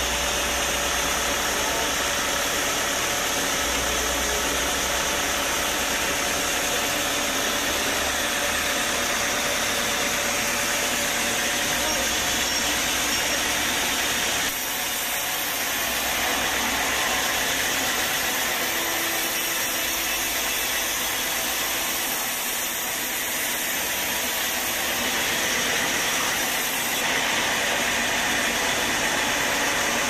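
Band sawmill running steadily, its blade cutting lengthwise through a young teak log on the carriage. The sound shifts slightly about halfway through.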